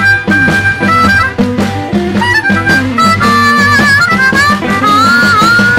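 Live blues band playing an instrumental passage led by harmonica, whose notes bend and slide in the second half over the band's steady rhythm.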